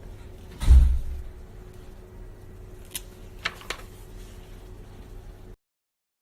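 A single heavy, dull thump about a second in, then a few light clicks or taps, and the sound cuts off abruptly near the end.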